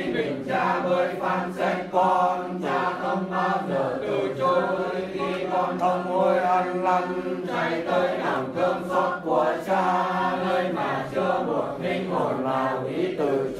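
A voice intoning a Vietnamese Catholic prayer to Divine Mercy in a chant-like recitation, over sustained background music.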